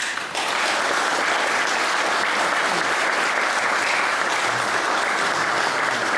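Audience applauding: a dense, steady round of clapping from many people that starts a moment in and holds at an even level.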